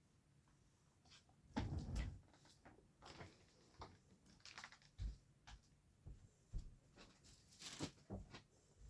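Faint handling noises of someone rummaging for something: scattered light knocks, clicks and rustles, with a louder cluster of knocks about one and a half to two seconds in.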